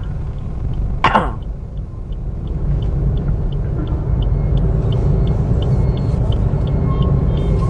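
Car cabin rumble from the engine and road, with the turn-signal indicator ticking evenly at about three ticks a second. About a second in there is a short vocal sound like a throat clear.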